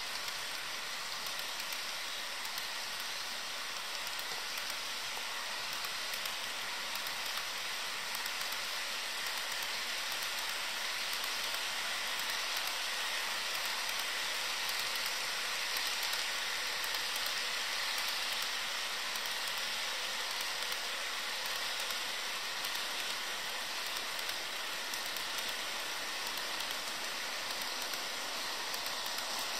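HO scale freight cars rolling past on model track: a steady rushing hiss and clatter of small metal wheels on the rails, swelling a little midway.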